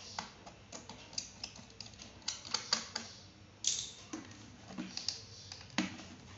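Hands working on a laptop: irregular light plastic clicks and taps, several a second, with a short scrape about three and a half seconds in.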